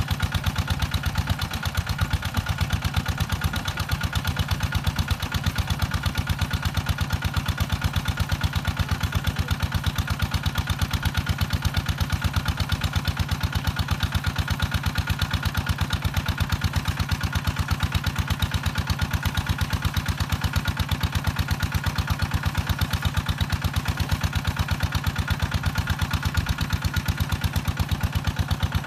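Small water-pump engine running steadily with an even, rapid pulse, unchanging throughout.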